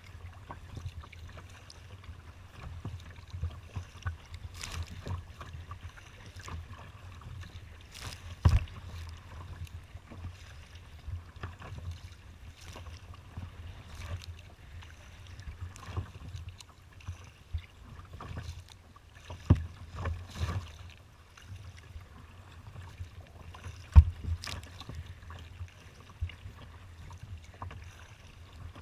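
Choppy water splashing and slapping against a kayak's hull in irregular bursts, over a steady low wind rumble on the microphone. Two slaps, about eight and a half and twenty-four seconds in, are much sharper and louder than the rest.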